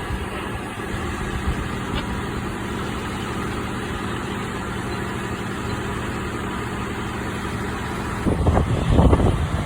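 Fire truck's diesel engine idling steadily. Wind buffets the microphone in gusts near the end.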